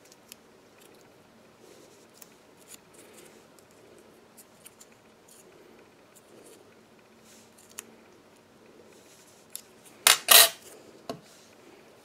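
Faint paper rustling and small clicks while a paper petal is curled with fine metal tweezers. About ten seconds in comes a brief loud metallic clatter in two quick hits as the tweezers are set down on the table, followed a second later by one smaller click.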